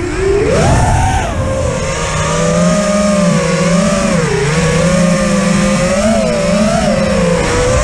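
5-inch FPV quadcopter's brushless motors (XING E-Pro 1800kv) and propellers whining in flight, the pitch rising and falling constantly with throttle. There is a dip and sharp climb about a second in and another dip near the middle, heard from a camera mounted on the quad.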